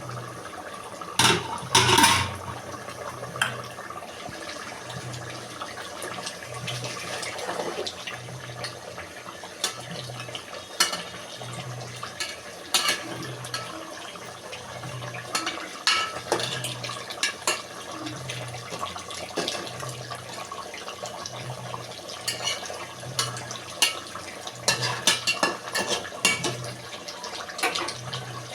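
Water splashing and trickling while metal pots and utensils clink and knock at irregular intervals, the loudest clatter about two seconds in, as chicken is washed and prepared for cooking. A faint low pulse repeats about once a second underneath.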